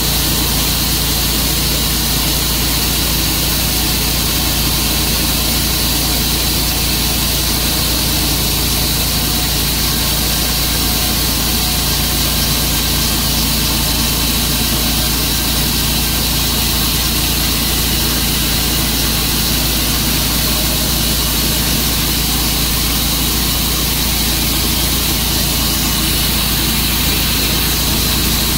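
Sawmill engine running steadily at a constant pitch.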